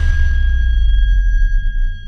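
Edited-in music or sound effect: a deep, sustained bass boom with a high ringing tone above it that slowly fades, the bass dropping away just before the end.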